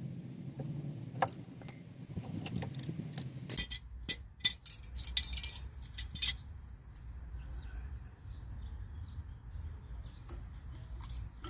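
Metal clinking and rattling of hand tools and disc brake caliper parts being handled, with a cluster of sharp clinks about a third of the way through.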